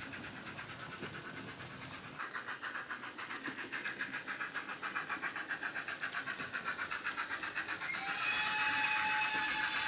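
DCC sound decoder in a Dapol Large Prairie model steam tank engine, playing a GWR Large Prairie steam sound file through a small speaker in the smokebox. It gives rapid, even exhaust chuffs that start about two seconds in and grow louder as the loco draws near. A steady high tone joins the chuffing near the end.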